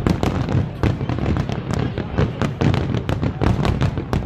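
Aerial fireworks barrage: many shells bursting in quick succession, several sharp bangs a second over a continuous low rumble.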